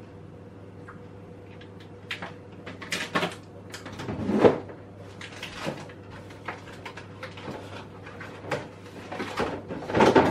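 Kitchen clatter: irregular knocks, taps and rattles of things being handled and put down, loudest about four and a half seconds in and near the end, over a low steady hum.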